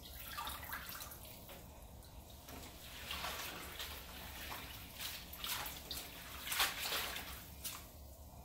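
Water splashing and dripping as handfuls of wet chopped collard greens are lifted out of a stainless-steel sink basin of soaking water and moved into the other basin. The splashes and drips come irregularly, busiest in the middle.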